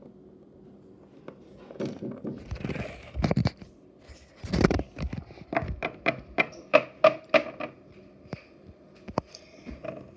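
Small plastic toy figures handled and tapped on hard plastic and wood surfaces: scattered clicks and knocks with some rustling, a louder knock about halfway through, then a run of quick taps at about three or four a second.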